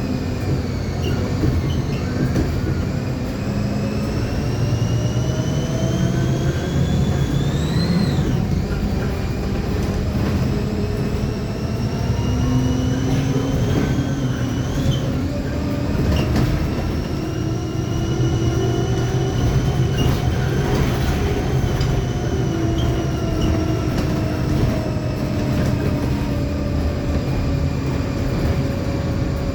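Rear differential of a Mercedes-Benz OF-1724L bus chassis whining while the bus drives, over the running diesel engine and road noise. The whine is several tones whose pitch climbs and falls with road speed, peaking and dropping back sharply about eight and fifteen seconds in. It is the sign of a noisy, howling differential.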